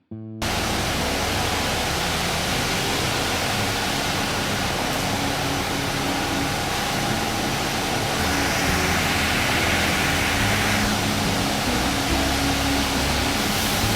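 Engine running steadily under a loud, even hiss.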